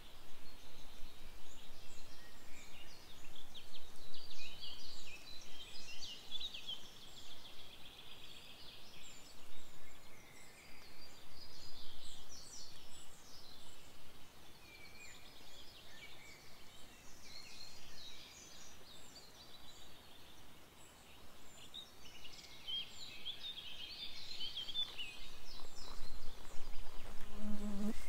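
Songbirds singing in a leafy spring forest: many short, varied high chirps and trills overlapping, denser near the start and again near the end.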